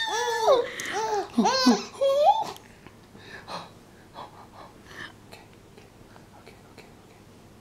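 A baby laughing in a run of high, squealing hoots that rise and fall, each under half a second. The laughter stops about two and a half seconds in, leaving only faint short breaths and small sounds.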